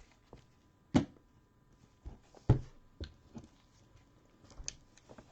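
Trading cards and plastic card sleeves being handled on a table: a series of sharp taps and clicks, about six in all.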